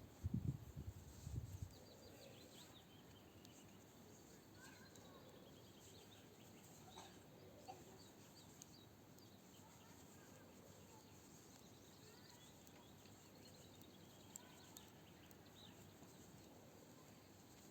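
Faint birdsong: several birds chirping, with repeated falling trills, over a quiet outdoor background. A few low thumps in the first two seconds.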